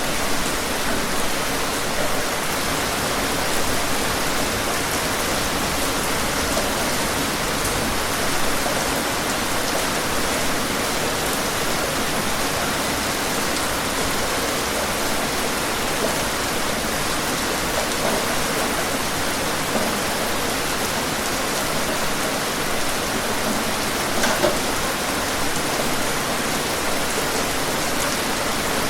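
Steady rain falling, an even hiss of dense drops with a slightly louder drop or splash once about twenty-four seconds in.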